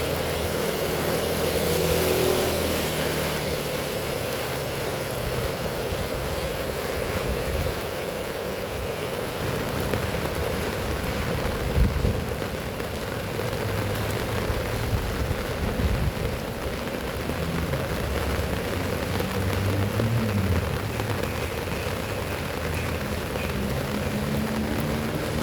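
Heavy rain falling steadily, with motor vehicles droning past on the wet road and two short thuds about halfway through.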